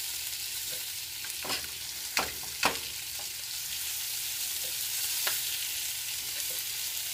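Baby goat chops shallow-frying in oil on an iron tawa with a steady sizzle. A spatula scrapes and clicks against the pan a few times as the chops are turned over.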